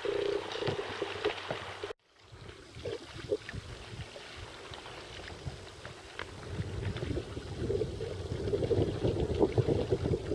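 Water splashing and trickling around a kayak as it is paddled, with a low rumble building up and the splashing growing louder in the second half. The sound drops out briefly about two seconds in.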